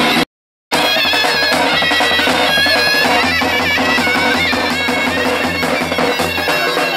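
Zurna, a shrill double-reed folk shawm, playing a loud, wavering, ornamented melody over drum beats. The sound drops out completely for about half a second near the start.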